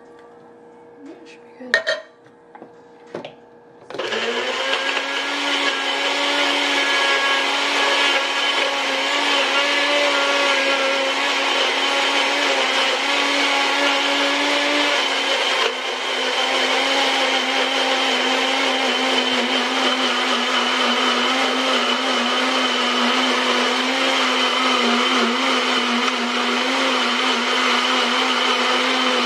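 A few short knocks, then about four seconds in a bullet-style personal blender's motor starts and runs steadily at high speed, crushing frozen pineapple chunks with pineapple juice and dairy-free ice cream. About halfway through its pitch dips briefly and it runs on slightly lower under the load.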